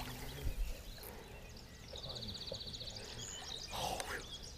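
Quiet lakeside ambience with a short, fast bird trill of evenly spaced high notes about two seconds in.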